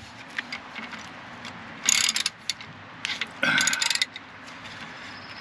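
Ratchet wrench with a 5/8 socket clicking in two short bursts, about two seconds in and about three and a half seconds in, as it works the serpentine belt tensioner of a MerCruiser 5.0 V8 to slacken the belt.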